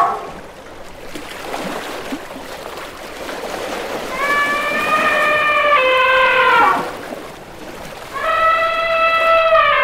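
Elephant trumpeting: two long trumpet calls, each falling in pitch at the end, the first starting about four seconds in. Before them, water splashing and sloshing as elephants move through it.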